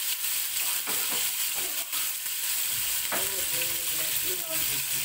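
Pork pieces frying in hot oil in an aluminium pressure-cooker pot, a steady sizzle.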